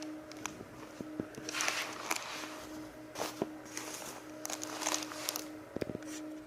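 Rustling and light taps from handling cloth diapers and their inserts, in several short bouts, over a faint steady hum.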